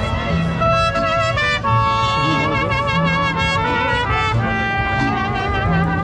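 Mariachi band playing live: trumpets carrying the melody with vibrato over violins and guitars, with low bass notes underneath.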